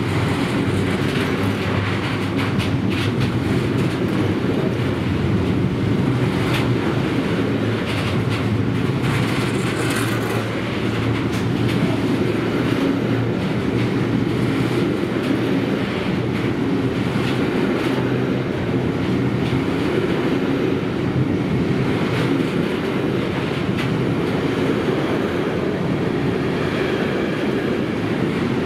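Container freight train's wagons rolling past close by: a steady rumble of wheels on rail, with scattered clicks as the wheels pass over rail joints.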